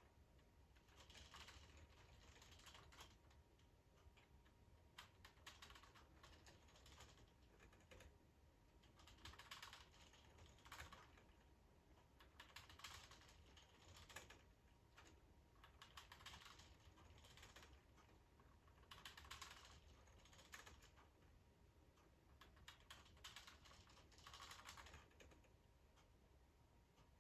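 Plastic K'nex carnival-ride model of a Loop-O-Plane turning, its plastic parts clicking and rattling faintly in recurring bursts about every three seconds over a low steady hum.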